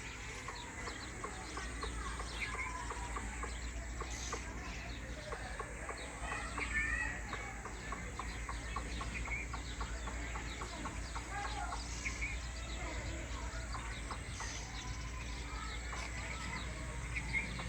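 Birds calling outdoors: many short, scattered clucks and chirps over a steady low hum.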